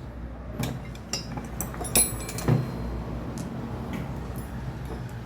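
Metal tools and parts clinking on a workbench during an engine teardown: a string of sharp metallic clicks and clinks, the loudest two about two and two and a half seconds in, over a low steady hum.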